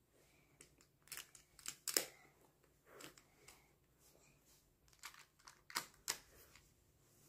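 Translucent plastic magnetic building tiles clicking and clacking as they are snapped together and set down, an irregular scattering of sharp clicks with a few close together about two seconds in and again around six seconds.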